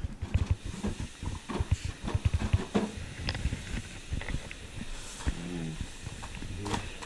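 Knocks, thumps and rustling as bedding and belongings on a bed are searched through by hand, busiest in the first three seconds. A short whining sound comes about five seconds in.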